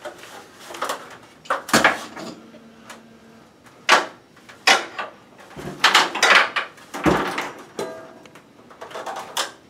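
Irregular clicks, clunks and light rattles of a ceiling light fixture's metal mounting hardware and screws being handled, with about half a dozen sharper knocks spread through.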